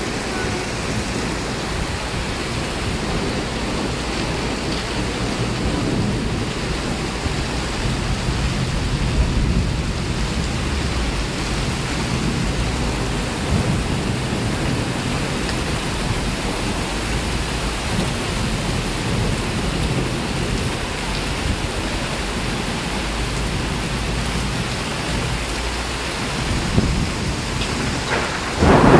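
Heavy rain pouring in a steady dense hiss over a low rumble, with a brief louder burst near the end.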